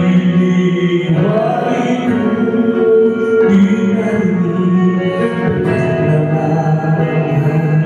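A man singing into a microphone over music, amplified through the bar's speakers, with long held notes.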